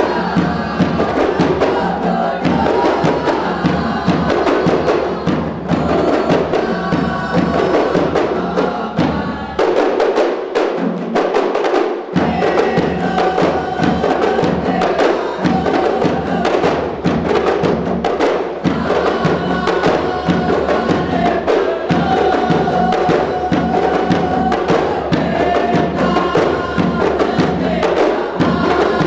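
Music with busy, rapid percussion and a held melody line; the bass drops out for a couple of seconds partway through.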